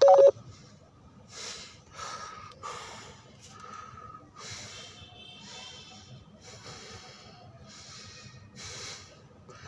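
A man breathing audibly through the nose while holding a yoga stretch, in a string of separate breaths about one a second.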